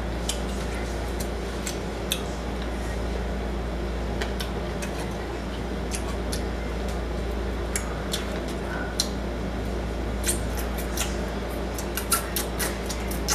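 Close-up eating sounds: wet lip smacks, chewing and finger-sucking clicks as fried chicken wing meat is pulled off the bone by hand. The clicks are sparse at first and come quickly one after another near the end, over a steady low hum.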